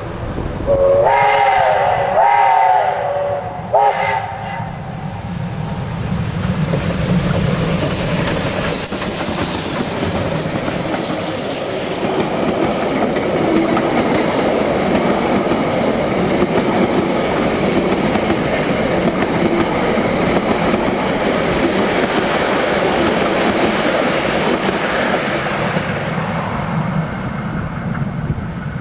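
Steam locomotive whistle giving one long blast of about two seconds, then a short toot, followed by the steady noise of the locomotive and its carriages rolling past close by.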